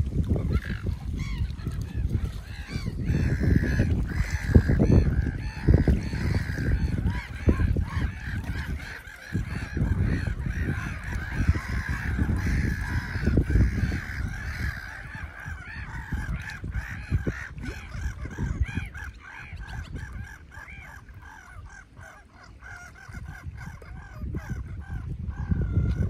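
A flock of waterbirds (gulls and mute swans) calling in a dense, continuous chatter of short repeated calls that thins out in the second half. A low uneven rumble runs underneath.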